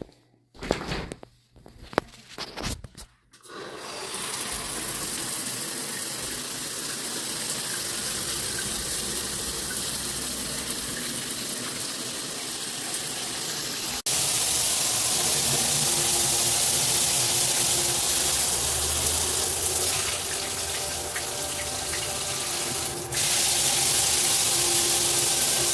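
A few short knocks, then water spraying steadily from a rainfall shower head. The spray's sound steps up abruptly about halfway through and again near the end.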